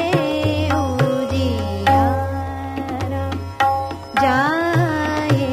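Hindustani classical music in Raga Hamsadhwani: a melodic line gliding between notes over tabla accompaniment, with resonant low bass-drum strokes.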